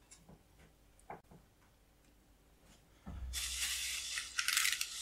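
Plastic bubble-wrap packaging crinkling and rustling as it is handled and cut open. A few faint light clicks come first, then a dense crackling rustle starts about three seconds in.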